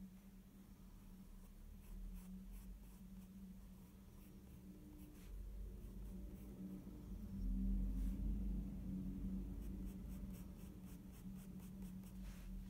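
Staedtler Mars Lumograph graphite pencil scratching on sketchbook paper in short, separate strokes, with a steady low hum underneath and a low rumble swelling around the middle.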